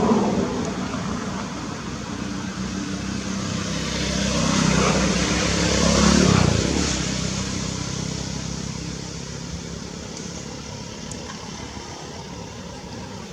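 A road vehicle passing by: engine and road noise swelling to a peak about six seconds in, then slowly fading.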